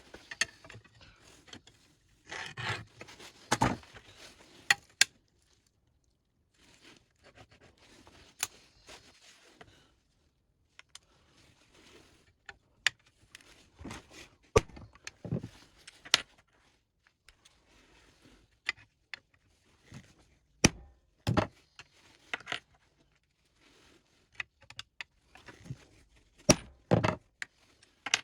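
Steel letter and number punches and a magnetic punch jig being handled: scattered metal clinks, scrapes and jangling, with a few sharper knocks.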